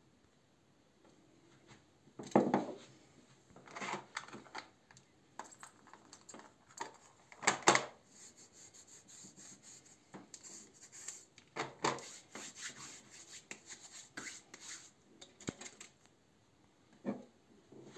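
Handling noise: hands rubbing together and small objects being picked up and put down on a dresser top, in irregular knocks and rustles, the two loudest about two and a half and seven and a half seconds in.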